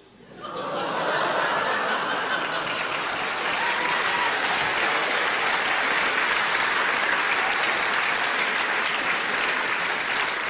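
Live audience applause, swelling up within the first second and then holding steady.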